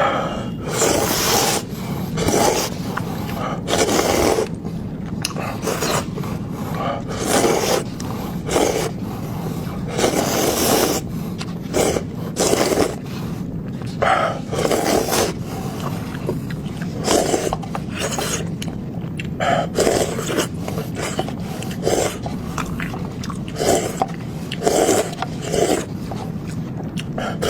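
Close-miked mukbang eating of pork fat: wet chewing and mouth smacking in irregular short bursts, roughly one every second, over a steady low hum.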